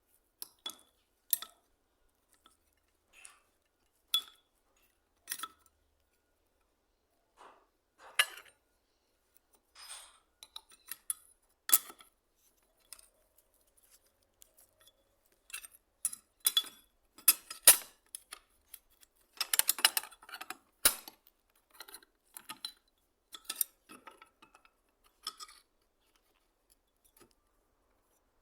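Metal parts of a hand plane being handled: irregular sharp clinks and taps, some with a brief high ring, with a quicker run of rattling clicks about two-thirds of the way through.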